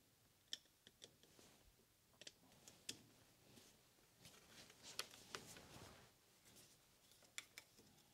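Faint, scattered small metallic clicks and light scraping from a small screwdriver picking at a lathe carriage's broken ball oiler.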